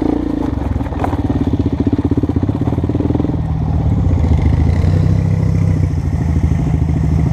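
ATV engine running under the rider's throttle over muddy ground, a steady rapid pulse of firing strokes. About three and a half seconds in the tone drops lower and settles as the quad slows.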